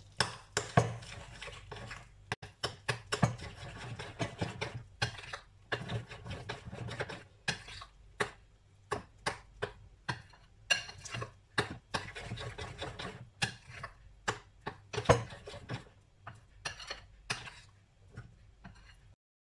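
A metal spoon stirring and mashing purple sweet potato into thick pancake batter in a glass bowl, with irregular clinks and taps of the spoon against the bowl over a soft scraping.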